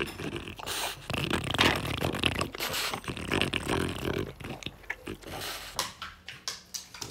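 A French bulldog licking a wet spot on wooden deck boards: irregular wet licking and sniffing close to the ground. The sounds grow sparser near the end.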